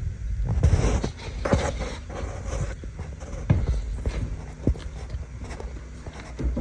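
Dry straw bedding rustling and crunching, followed by a few irregular footsteps and knocks.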